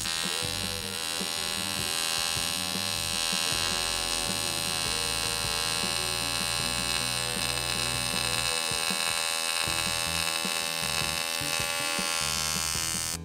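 AC TIG welding arc on aluminium from a Teamwelder TIG 180 AC/DC: a steady, even buzz with many overtones while a bead is laid with filler wire. It starts suddenly and cuts off suddenly near the end as the arc is broken.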